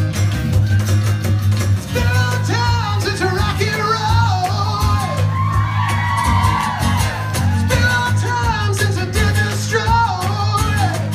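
Live band playing: strummed acoustic guitars over an electric bass, with a male lead singer coming in about two seconds in and singing on to the end.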